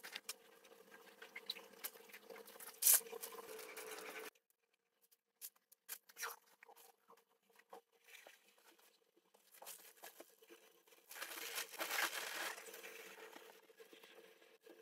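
Faint rustling of clothes being folded and pushed into a travel bag, with crinkling of the bag's material and small handling clicks, louder in two short stretches of a second or two.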